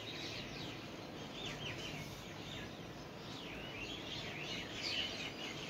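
Small birds chirping: many short, overlapping high chirps over a steady low background hiss.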